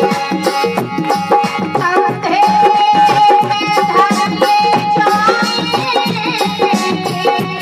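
Devotional Indian music with a tabla rhythm under held and gliding melodic lines.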